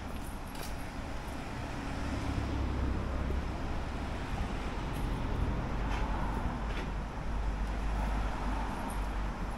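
Street traffic noise: a low vehicle rumble that swells about two seconds in and holds, over general city noise.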